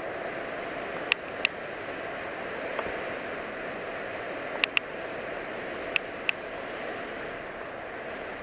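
Battery-powered TrackMaster motorized toy train running on plastic track with a steady motor whir. Sharp clicks come in pairs, three times.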